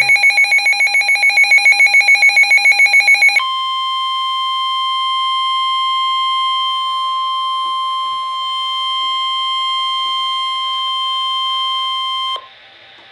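Rapid pulsing electronic alarm beeps, then about three seconds in a switch to the NOAA Weather Radio warning alarm tone. That tone is one steady single tone near 1050 Hz, held for about nine seconds, and signals that a warning message is about to follow. It cuts off near the end, leaving faint radio hiss.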